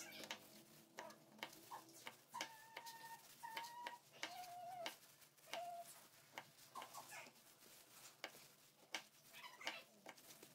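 Faint, irregular taps and clicks of a kitchen knife cutting broccoli florets against a plastic cutting board. A few short, faint animal calls sound in the background a few seconds in.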